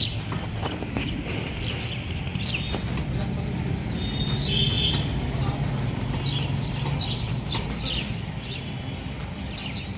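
Outdoor ambience: a steady low rumble that swells about four to seven seconds in, with scattered short bird chirps.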